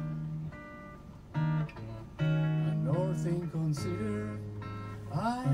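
Live band music: guitar backing under held and sliding melody notes, an instrumental stretch of a song.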